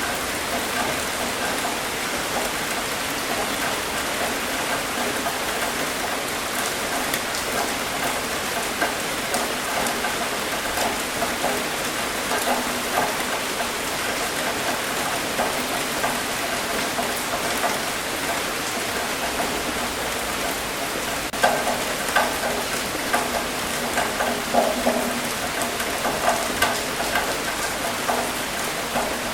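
Steady rain falling on a hard surface, a constant hiss dotted with individual drop ticks. Louder, sharper drips come more often from about two-thirds of the way in.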